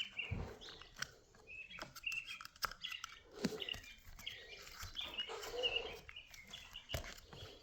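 Birds chirping faintly in the background, with scattered sharp clicks from small hand tools as work goes on at the car's gear bolts.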